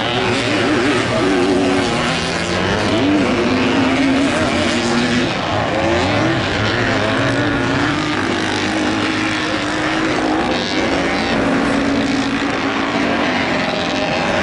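Several vintage motocross motorcycles racing, their engines revving up and down over one another.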